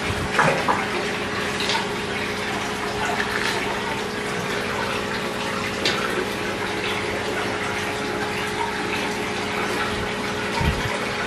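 Steady rush and bubbling of water in a fish pond with air stones and a circulating pump, over a low steady hum, with a few brief taps.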